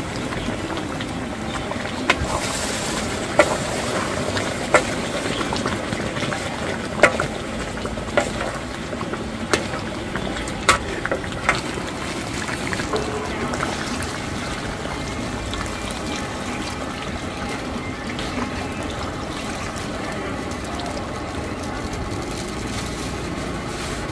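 Cooking utensil knocking and clinking against a pot or pan: about a dozen sharp knocks spread through the first half, over steady background noise.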